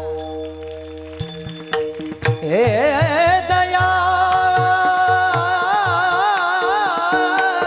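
Devotional folk music: a steady instrumental drone with soft, regular hand-drum strokes, then a singer glides up about two and a half seconds in and holds one long wavering note without words.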